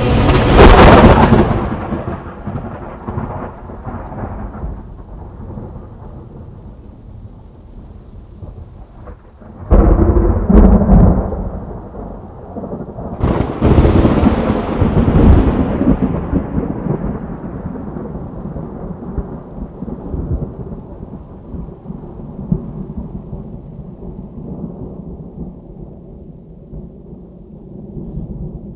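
Thunderstorm: three thunderclaps, a sharp crack right at the start, another about ten seconds in and a third about thirteen seconds in, each rolling into a long low rumble that slowly fades.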